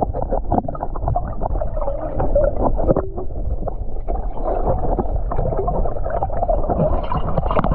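Backyard pool water sloshing and splashing close to the microphone, muffled, with many small knocks and gurgles.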